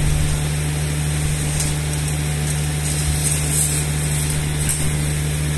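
Steady low hum of machinery running, with a few faint, light scratches of a line being marked along a steel rule on a steel plate.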